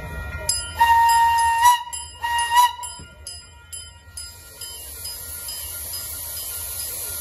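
Miniature steam locomotive's whistle sounded for departure: a long blast about a second in, then a shorter one, each rising slightly in pitch as it ends. From about four seconds in, steam hisses steadily.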